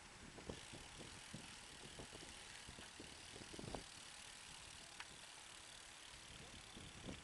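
Road bicycle rolling along an asphalt path: a faint steady hiss of tyres and moving air with a low rumble, broken by scattered light clicks and knocks from the bike, the loudest about three and a half seconds in.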